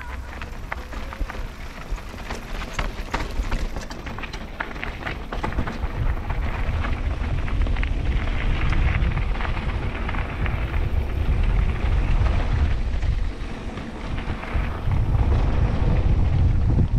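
Mountain bike riding down a gravel trail: wind buffeting the camera microphone and tyres crunching over gravel, with sharp rattles and clicks from the bike in the first few seconds. The rumble grows louder about six seconds in as the bike picks up speed.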